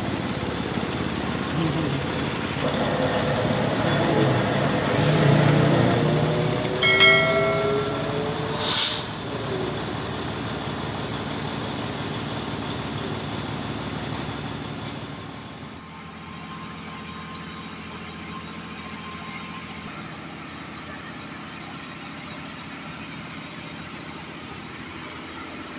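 Engines running at a road-repair site: a steady engine drone, with one engine rising in pitch a few seconds in and two sharp knocks around seven and nine seconds. About sixteen seconds in the sound drops suddenly to a quieter, steady engine hum.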